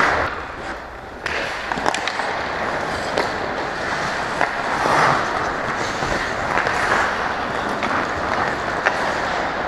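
Ice hockey play on the rink: skate blades scraping and gliding on the ice, with scattered sharp clacks of sticks and puck.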